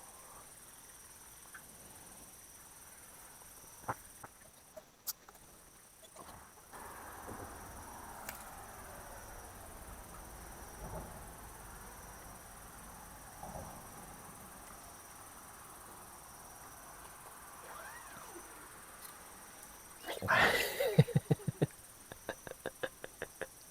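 Crickets and other night insects chirping steadily in a continuous high drone. Near the end comes a short loud pitched sound, then a rapid run of clicks.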